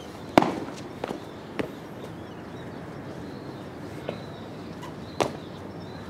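Body percussion: a handful of sharp slaps and stamps at uneven intervals, the loudest about half a second in, then two lighter ones in the next second and two more near the end.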